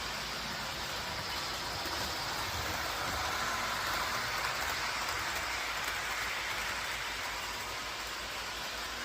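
A train rolling on its track: a steady noisy rolling sound that swells a little in the middle and then eases off.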